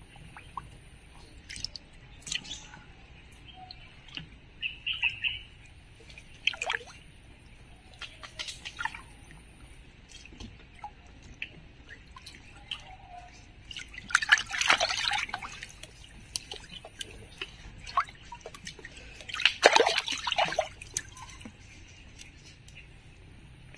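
Water splashing and dripping as hands work in a shallow stream pool around a fishing net, in scattered small splashes with two louder, longer splashes about two-thirds of the way in and shortly after.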